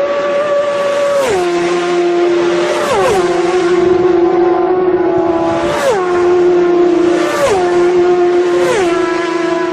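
Race cars passing at speed one after another, about five in a row, each engine note dropping sharply in pitch as the car goes by with a rush of noise.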